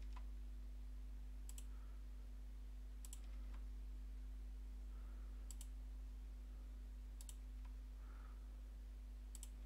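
Computer mouse button clicking about five times, a second or two apart, each click picking a node. A low steady hum runs underneath.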